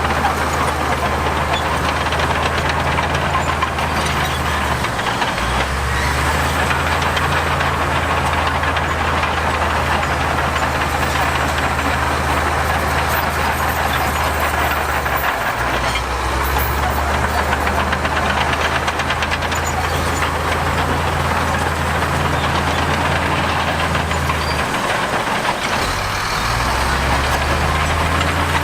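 Heavy diesel engine of construction machinery running steadily, with a low engine note that dips and shifts briefly about five seconds in, again about fifteen seconds in, and once more near the end.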